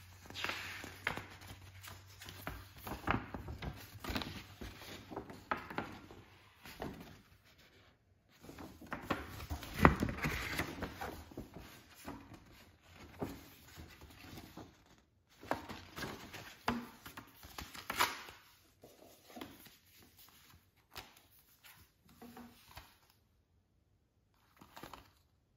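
Paper rustling and crinkling as a folded poster is unfolded and handled, in irregular bursts with sharp crackles, loudest about ten seconds in. A plastic disc case is handled briefly near the end.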